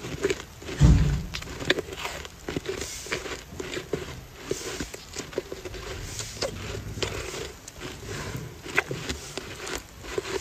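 Snow being chewed close to the microphone: irregular crisp crunches and crackles, with a low thump about a second in.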